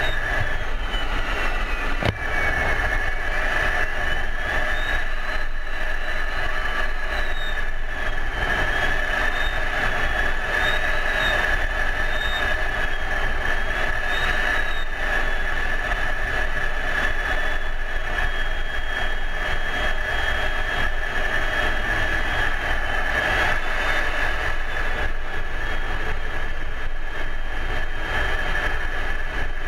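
Steady in-flight cockpit noise of an F-16: continuous jet and airflow hiss with a steady whine, and a fainter whine that slowly glides up and down in pitch. A single sharp click about two seconds in.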